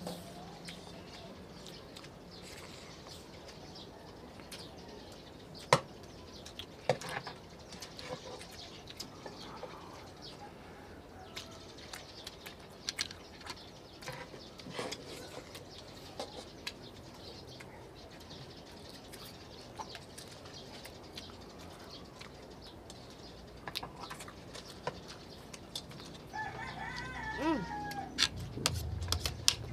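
Quiet eating: scattered soft clicks and mouth smacks as people chew and eat with their hands. Near the end a rooster crows once, its call falling in pitch as it ends.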